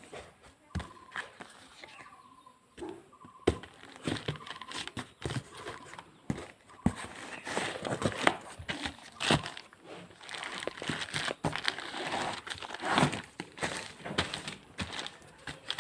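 Packaging crinkling and rustling as a parcel of printed study modules is unboxed and handled, with scattered knocks; the rustling grows busier and louder about halfway through.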